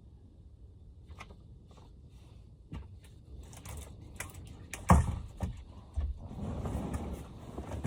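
Clicks, taps and knocks of camping-stove gear being handled and unpacked, with one sharp knock about five seconds in. A steadier low noise comes in about six seconds in.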